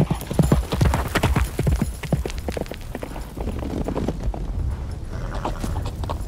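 A horse galloping, a rapid, irregular run of hoof beats over a low rumble.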